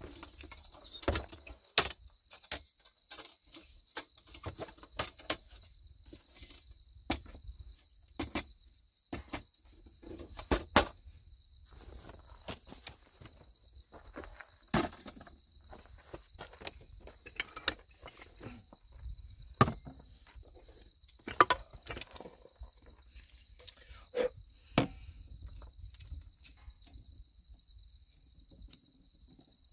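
Irregular knocks, clicks and clanks of a metal-framed folding table being unfolded, set up and having things set down on it, over a steady high insect trill.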